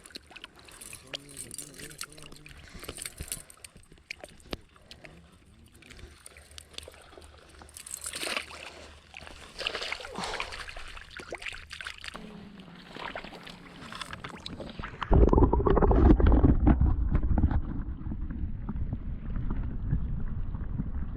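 Scattered light knocks and handling noises, then about fifteen seconds in a sudden, loud low rumble that carries on.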